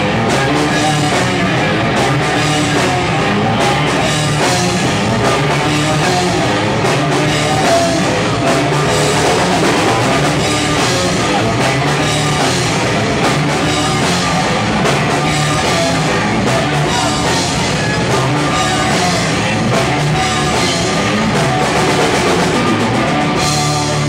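Loud rock music with a drum kit playing.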